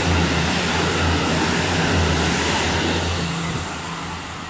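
KiHa 85 series diesel railcars running through the station without stopping: the low drone of the Cummins diesel engines under a loud rush of wheels on rail. The sound holds loud for about three seconds, then fades as the train pulls away.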